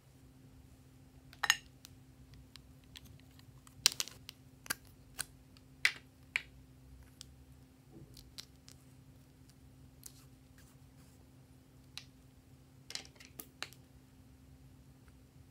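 Scattered sharp clicks and taps of lipstick tubes being handled and their caps pulled off, about a dozen in all, with a faint steady hum underneath.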